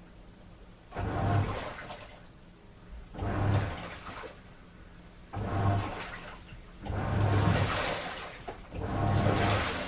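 Washing machine on a strong wash cycle: the drum churns the load, and water sloshes in surges about every two seconds over a low motor hum.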